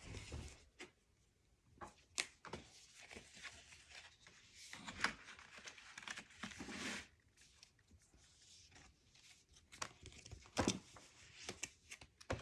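Paper and cardstock being handled and shuffled on a work table: rustling with scattered light taps and clicks, and a longer rustle about halfway through.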